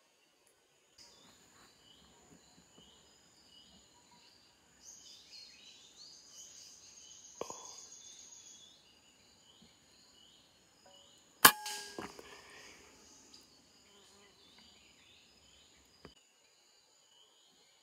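A single sharp crack of a PCP air rifle firing about eleven seconds in, followed half a second later by a second, fainter click. Faint, high chirps repeat throughout.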